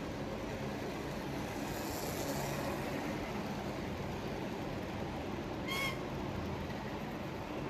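HO-scale model train coaches rolling past along the track: a steady rumble and hiss of the wheels on the rails, with one brief high squeak about six seconds in.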